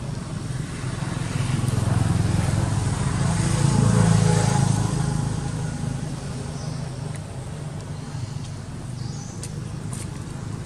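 A motor vehicle driving past, its engine hum growing louder to a peak about four seconds in and then fading away.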